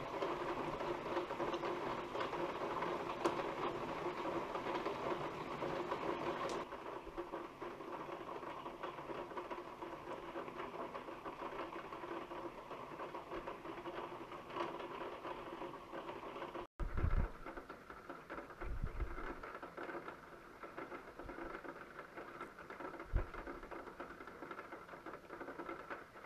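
Steady patter of rain over a low steady hum, with a few short low thumps in the second half.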